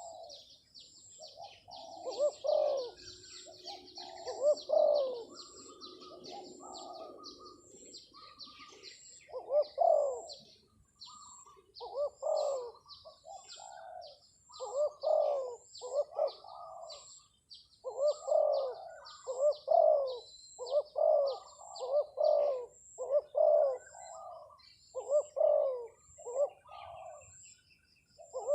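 Spotted dove (terkukur) cooing over and over in short clusters of notes, its coaxing call meant to lure a wild dove down. Small birds chirp high above it throughout.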